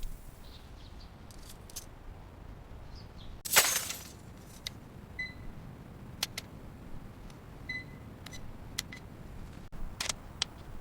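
A digital scale beeping twice, short pure beeps, among scattered clicks of handling, with one loud brief clatter about three and a half seconds in.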